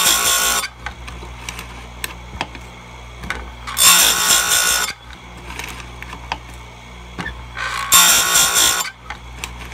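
Power Fist bench-mounted chainsaw grinder's wheel grinding the chisel cutters of a dull saw chain, three short grinds about four seconds apart, each about a second long, over the steady hum of its motor. It is a light touch-up sharpening, one cutter per grind.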